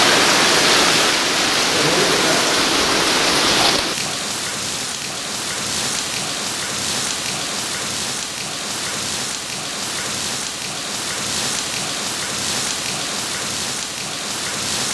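Heavy storm rain hissing steadily. It is louder and fuller for the first four seconds, then drops suddenly to a quieter, even hiss.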